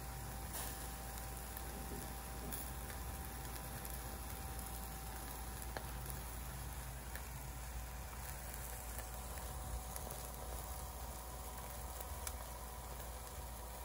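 Skewered meat sizzling over charcoal on a tabletop grill, with a few sharp pops, and a steady hum from the grill's battery-powered fan blowing air under the coals.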